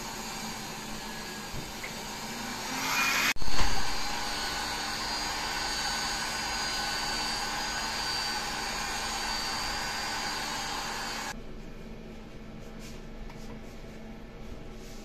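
Steady whir and hiss of a small motor, swelling and breaking off abruptly about three seconds in, then running on until it drops suddenly to a faint hiss about eleven seconds in.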